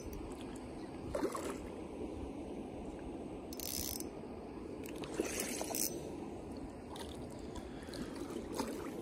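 Spinning reel being cranked against a hooked bowfin, a steady mechanical whirr of the reel's gears, with a few short sharp bursts of noise about a second, four and five seconds in.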